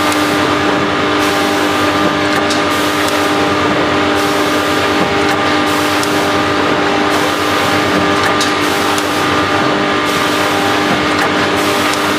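Vertical form-fill-seal packing machine running: a steady mechanical hum with several constant tones, and a few light clicks.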